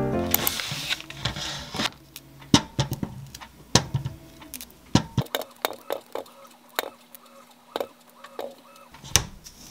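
Green grapes dropped one at a time into a stainless steel mesh strainer: irregular light taps and knocks, a couple of dozen over several seconds, with a brief rustle of handling in the first second or two.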